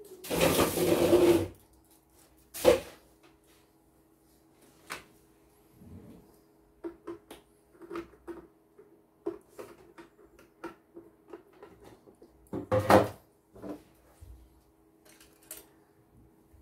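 Handling noises from a CNY computerised embroidery machine as it is worked on by hand: a loud noisy scrape about a second long at the start, then a scattered run of light plastic clicks and knocks, and another loud short burst about 13 seconds in. A faint steady low hum runs underneath.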